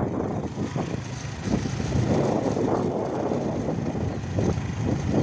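A small motorcycle running along a road while being ridden, its engine sound mixed with uneven wind noise on the microphone.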